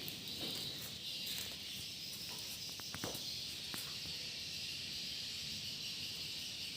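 Swiftlets chittering inside a swiftlet house, a steady high twittering with faint ticks, and a few sharp clicks about three seconds in.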